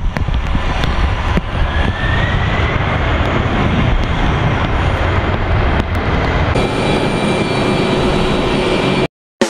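Jet airliner landing on a wet runway: a loud, steady engine roar with a whine that rises in pitch about a second and a half in. After about six and a half seconds it changes to the steadier, higher whine of the jet engines as the airliner taxis.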